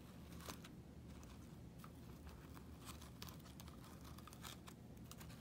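Near silence with faint, scattered clicks and rustles of handling as small jewelry pieces are moved about.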